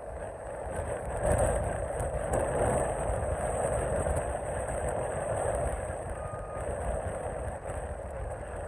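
Mack Superliner semi truck pulling a loaded lowboy trailer past: steady diesel engine and road rumble, getting louder about a second in.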